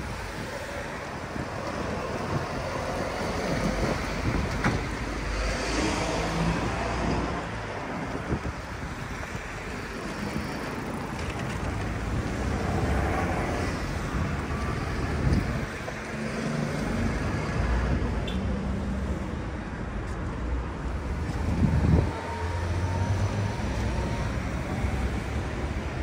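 City street ambience: steady road traffic noise, swelling a little as vehicles pass.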